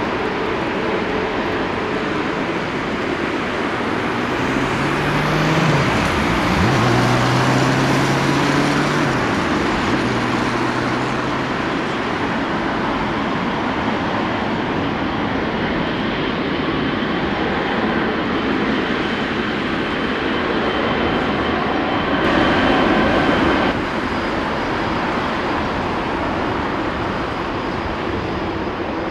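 Boeing 787-10 airliner taxiing, its jet engines giving a steady rushing noise at taxi power. A lower hum wavers in pitch between about four and twelve seconds in, and the noise swells briefly near the end.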